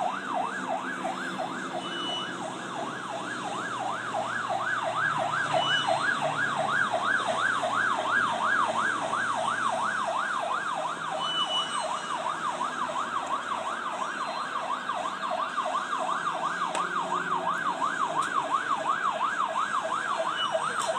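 Electronic emergency siren in a fast yelp, its pitch sweeping up and down about three times a second; it cuts off suddenly at the end.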